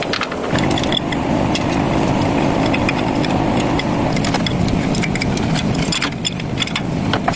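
A steady mechanical running noise, like a power tool's motor under light load, with scattered small clicks and rattles throughout.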